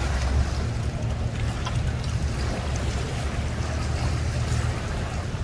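Pontoon boat's outboard motor running at low speed, a steady low hum, mixed with wind on the microphone and the wash of water.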